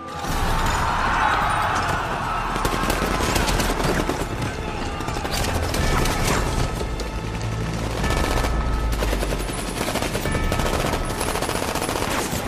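Film battle sound mix: rapid gunfire, many shots in quick succession, with music underneath.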